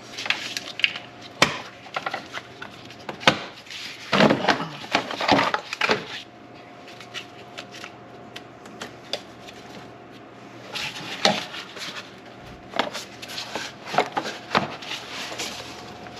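Hand tools and engine parts clicking and knocking as they are worked on, in clusters of sharp taps, with a quieter stretch in the middle.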